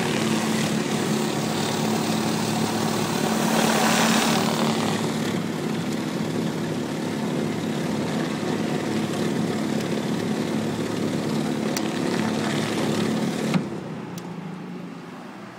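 Pressure washer running steadily, its high-pressure water jet hissing on a concrete sidewalk; the spray swells about four seconds in and cuts off suddenly near the end, leaving a lower, quieter hum.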